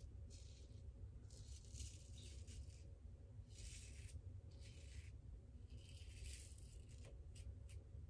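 Faint, short scrapes of a Supply single-edge injector razor cutting stubble on a lathered chin, about half a dozen separate strokes with short gaps. These are touch-up passes over the chin.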